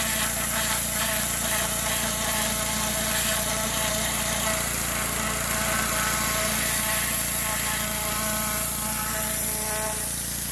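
Yamaha-powered gas pressure washer running steadily under load, its small engine drone mixed with a constant high hiss of water spray.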